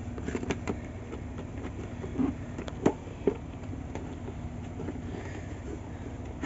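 Cardboard drone box being handled on a hard floor while it is opened: scattered light taps, clicks and scrapes over a steady low background hum.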